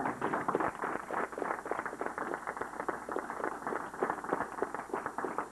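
A group of people applauding, dense uneven clapping throughout.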